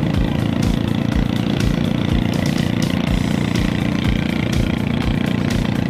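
Small motor vehicle engine running steadily while moving, with soft thumps about three times a second.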